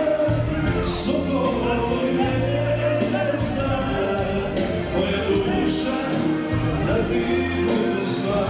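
Dance music with a singing voice over a steady beat.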